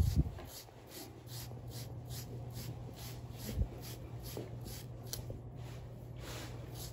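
Short, rhythmic scraping strokes of a carding knife pulled through a puppy's coat, about two to three a second, raking out the dead undercoat. A steady low hum runs underneath, with a soft thump at the start and another about three and a half seconds in.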